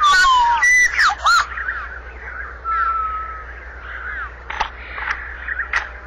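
Ospreys calling: a loud run of whistled, downward-slurred chirps in the first second and a half, a longer held whistle about three seconds in, then softer, repeated chirps.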